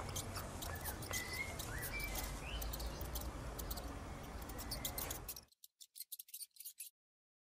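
Crisp rustling and clicking of straw under the dogs, over a low steady rumble, with a few short high chirps between about one and two and a half seconds in. The sound cuts out suddenly about five and a half seconds in, and only a few faint clicks follow before silence.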